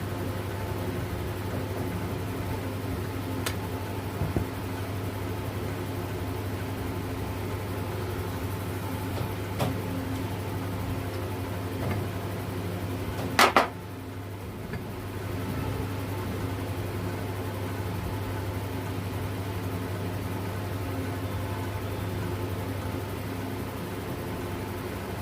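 Steady mechanical hum, like a fan or motor running, with scattered light metal clicks and one sharp double clank about halfway through, as tools work on the alternator being opened up.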